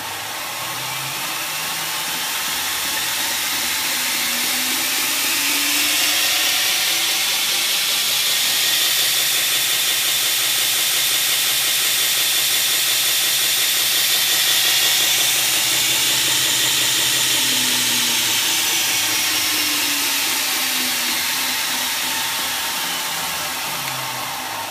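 A 2x72 belt grinder driven by a 1 hp Ironhorse motor on a variable-frequency drive, speeding up from a crawl, holding at about half its top speed, then slowing back down. Its whine and belt hiss rise in pitch over the first several seconds, hold steady, then fall away near the end.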